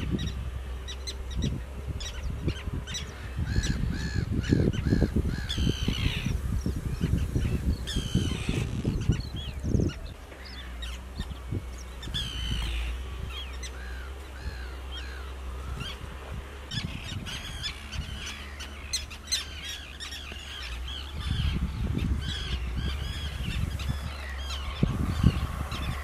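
Common terns calling across a nesting colony: many short, harsh calls in overlapping strings throughout, over a low, gusty rumble.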